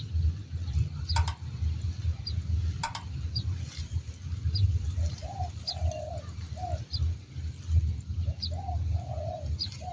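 Spotted doves cooing: two phrases of coos, one about halfway through and one near the end. Underneath runs a steady low rumble, a small bird's thin chirp repeats about once a second, and two sharp clicks come in the first three seconds.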